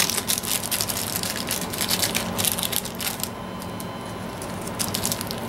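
Small plastic parts bag crinkling and crackling as heatsink clips are pulled out of it: a dense run of crackles for about three seconds, then a quieter stretch and a few more crackles near the end.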